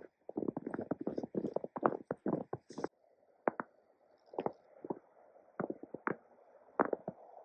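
Footsteps crunching in snow: a quick run of steps for about the first three seconds, then slower, more spaced steps over a faint steady hiss.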